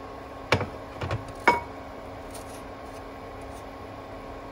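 Metal kitchen tongs clacking against a nonstick frying pan three times while turning a frying bun in oil: about half a second in, then twice more within the next second, the last with a short metallic ring. A steady faint hum runs underneath.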